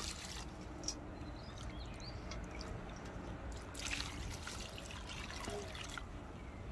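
Milky rice-washing water poured from a metal bowl into a wide cast-iron pan over sliced radish, a steady trickle and splash.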